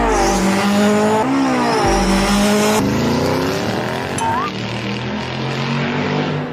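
Racing-car engine revving loudly, its pitch dipping and climbing several times, with tyre squeal and deep bass hits about a second before the start and about two seconds in.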